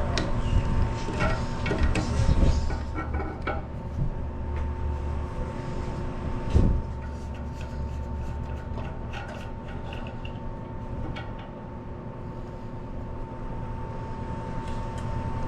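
Parts of a toilet tank's flush mechanism being handled: rubbing and small clicks, with one clunk about six and a half seconds in, over a steady high hum.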